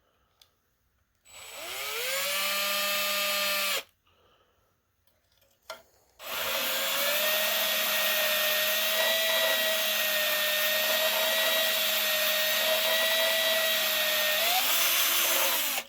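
Power drill spinning a soft brass brush on an extension inside a rifle's chamber, scrubbing out old built-up gunk. It makes a short run of about two and a half seconds, then a longer run of about nine seconds, whose whine rises briefly just before it stops.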